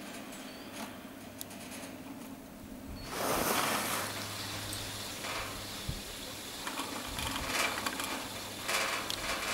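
The haul rope of a 1959 Doppelmayr T-bar lift running over the tower's sheave rollers, with a steady low hum and rattling spells as the rope and hangers pass the rollers. It grows louder about three seconds in, quieter and faintly clicking before that.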